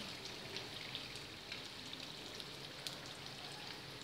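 Hot oil sizzling in a frying pan as wonton wrappers and a battered chicken drumstick deep-fry: a steady hiss with many small scattered pops and crackles.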